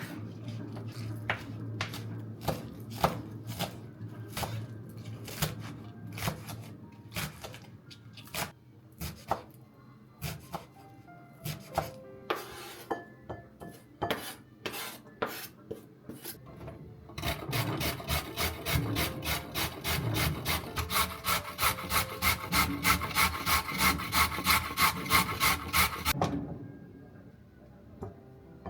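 Vegetables being grated on a hand grater. The rasping strokes are uneven at first, then become a fast, regular run of about two strokes a second through the second half, and stop shortly before the end.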